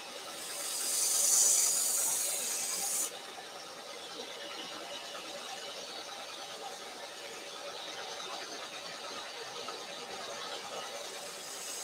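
Spyderco Paramilitary 2 knife blade held against the running belt of a small bench belt sander: a loud, high hissing grinding pass that lasts about three seconds and stops abruptly as the blade is lifted. The sander's motor and belt keep running steadily, and another pass starts near the end. The edge is being ground to raise a burr.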